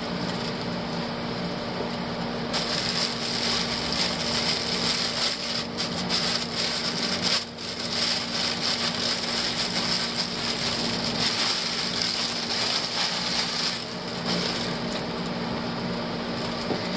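Plastic bag crinkling as it is handled and unwrapped, in irregular rustling that starts a couple of seconds in and dies down near the end, over a steady low hum.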